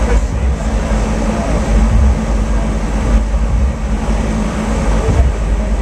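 Wind noise from a cooling fan's airstream blowing across the microphone: a loud, steady, buffeting rumble with a faint steady hum under it.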